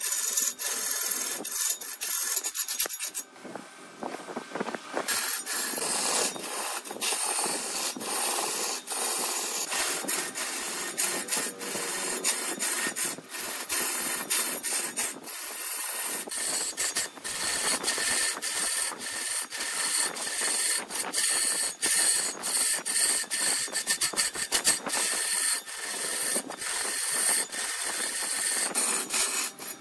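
A turning tool cutting into wood spinning on a wood lathe: a dense, hissing scrape full of rapid ticks. It eases off for a couple of seconds about three seconds in, then the cutting resumes.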